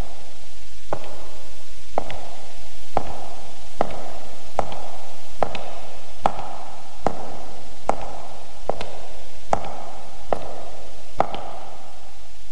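Slow, evenly paced footsteps, a sharp clack a little more than once a second, each with a short ringing echo, over a steady hiss.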